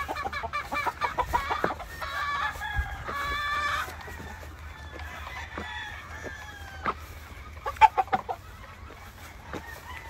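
Several gamefowl roosters clucking and crowing in their pens, with one long crow about two seconds in and a brief flurry of sharp calls near the end.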